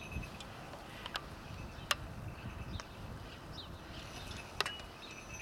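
Open-air ambience: a low rumble, with a few short sharp clicks and taps and some faint high chirps.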